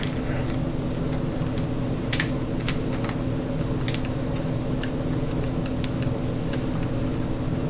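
Irregular light clicks and ticks from a screwdriver tightening a screw into the parts of a WELL MB05 airsoft sniper rifle, about ten spread over several seconds, over a steady low hum.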